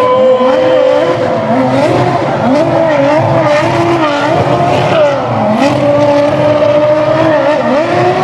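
Formula 1 car's Cosworth V8 engine running on the circuit, its revs climbing, holding and dropping again several times as the car accelerates and slows.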